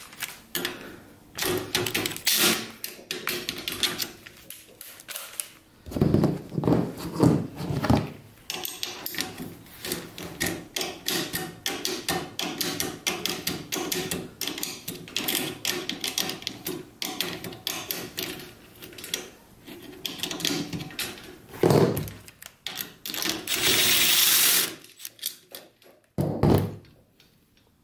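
Hand tools loosening the trolley on a chain-drive garage door opener rail: irregular metal clicks and knocks, with a long run of quick light clicking through the middle. Heavier thumps come about six to eight seconds in and twice more near the end. About a second of a cordless impact driver running comes a little before the end.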